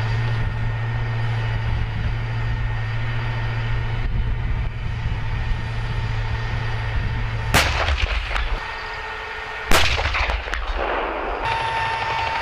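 Steady low engine rumble from idling M1 Abrams tanks, broken by two sharp bangs about two seconds apart, the second louder and trailing off in a rumble.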